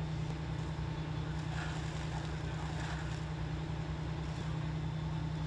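A steady low mechanical hum, like an idling engine, with faint outdoor background noise.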